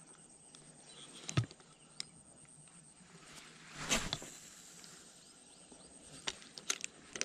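Spinning rod and reel being handled and cast: a sharp knock about a second and a half in, a short swish about four seconds in as the rod swings, then a few sharp clicks of the reel near the end.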